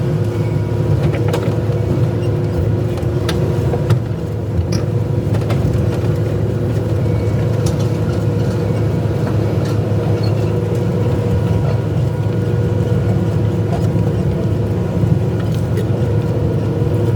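Excavator's diesel engine running at a steady speed, with a few faint clicks and knocks now and then.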